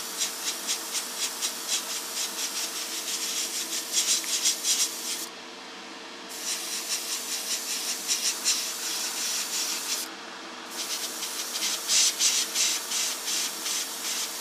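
Airbrush spraying thick white primer, a loud fluttering hiss that cuts off twice for under a second as the trigger is let go, about five and ten seconds in. A steady hum runs underneath.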